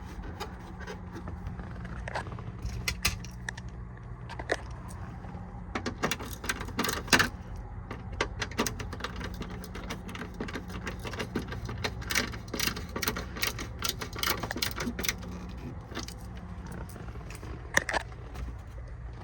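Clicks, light rattles and scrapes of screws and plastic dash trim being handled and fitted, over a steady low hum.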